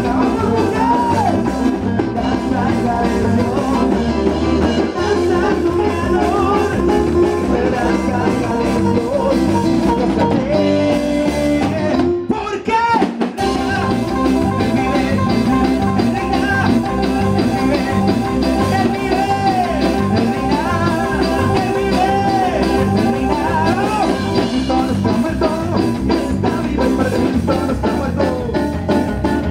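Live rock band playing upbeat music: electric guitar over keyboard and a drum kit with a steady beat, with a short break in the playing near the middle.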